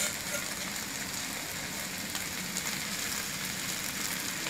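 Bamboo shoots, pork and glass noodles sizzling steadily in a hot wok, with faint ticks and scrapes as a metal spatula and fork stir them.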